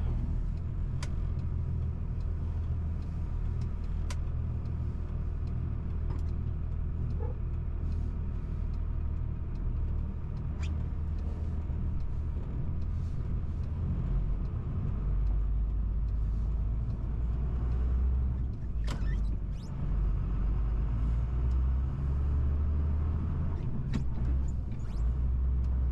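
A heavy truck's engine and road noise heard from inside its cab as the truck drives off on a wet road: a steady low drone that grows louder about halfway through, with a short dip later on and a few faint clicks.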